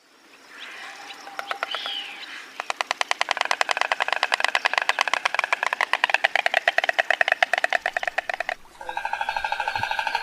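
Stork clattering its bill: a rapid, even wooden rattle that builds from scattered clicks, runs for about six seconds, breaks off abruptly, and starts again near the end.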